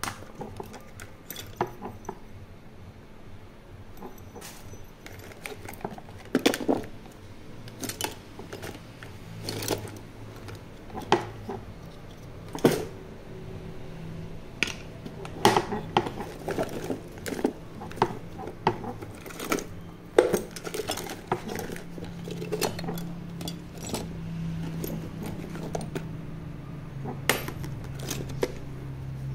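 Small hard objects, metal and plastic, clicking and clinking against each other as a hand rummages through a case of old junk, with irregular knocks and rattles every second or so.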